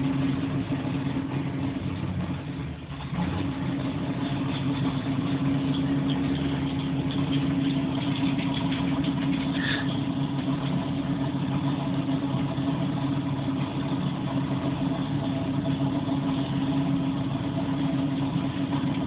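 Race car engine running steadily at idle, loud, heard from inside the house.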